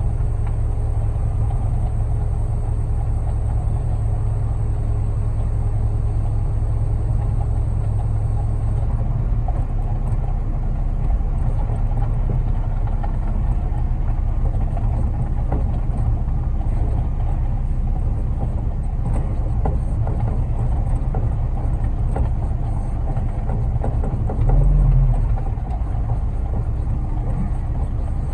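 Concrete mixer truck running steadily while its drum turns and discharges, the drum rattling as the load runs low, a sign that it is nearly empty. A faint high whine stops about nine seconds in, and there is a brief louder low surge near the end.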